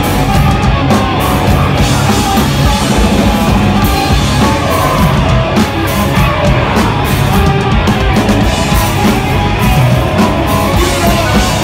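Hardcore metal band playing live, with distorted electric guitars and a drum kit, loud and continuous.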